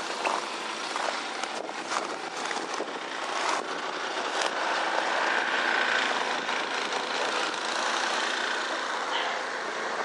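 An engine running steadily with a faint whine, alongside a few scattered crunches in the first few seconds.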